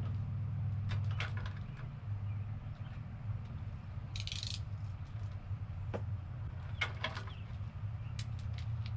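Small parts being handled during assembly: scattered clicks and light plastic or metal rattles, with a brief hiss about four seconds in, over a steady low hum.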